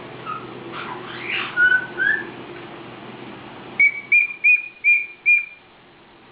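Pet caique parrot whistling: a few short sliding and rising notes, then five short, even whistles in quick succession, about two a second.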